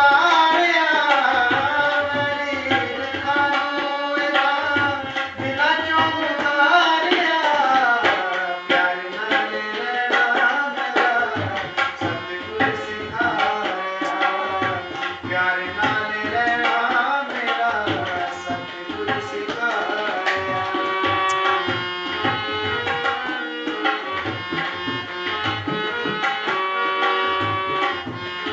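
Tabla and harmonium playing a devotional song (Nirankari geet), the tabla keeping a steady rhythm with deep bass strokes under the harmonium's held melody notes. A man sings over them for the first several seconds, after which the harmonium and tabla carry on alone.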